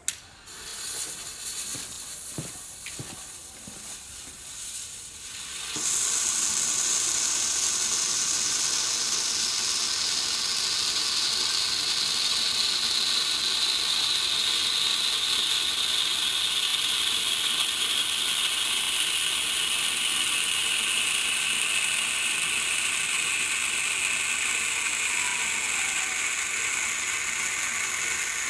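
Bengal hand torch (red-flame firework flare) being lit, with a few clicks and sputters, then catching about six seconds in and burning with a steady loud hiss whose pitch slowly sinks.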